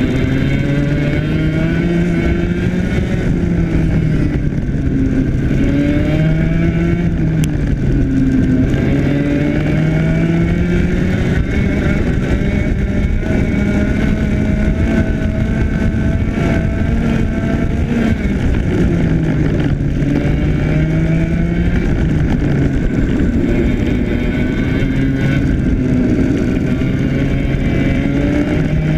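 IAME X30 125cc two-stroke kart engine at racing speed, its note climbing as the kart accelerates and dropping back as it slows, again and again through the lap, with steady wind and road rumble on the onboard microphone.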